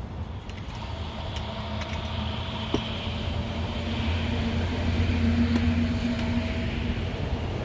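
Honeybees buzzing around an open, crowded hive: a steady hum that grows louder toward the middle, over a low rumble.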